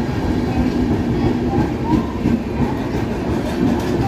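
Indian Railways LHB passenger coaches passing at speed: a steady rumble and rattle of wheels running on the rails, with clickety-clack over the rail joints.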